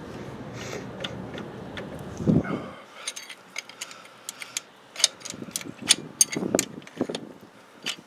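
Small metal clicks and clinks as tools and loose parts are worked by hand among the rocker arms and injector of an open Cummins L10 diesel cylinder head. A steady low rumble ends with a thump about two and a half seconds in, and scattered sharp clicks follow.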